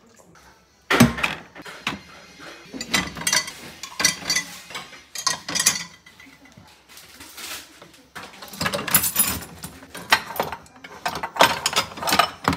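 Dishes and cutlery clattering against the plastic and wire racks of a pull-out drawer dishwasher as it is loaded and the racks are shifted, in irregular bursts of clicks and knocks. A sharp knock about a second in is the loudest sound.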